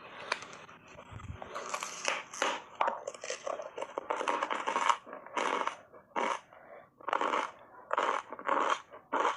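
Hard ice bars coated in matcha powder being bitten and chewed, giving sharp crunches. The first few seconds are a denser run of crunching and scraping; from about halfway in, single crunches come roughly one or two a second.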